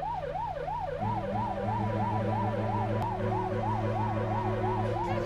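Fire engine siren in a fast yelp, its pitch rising and falling about four times a second, over a steady low hum that grows louder about a second in.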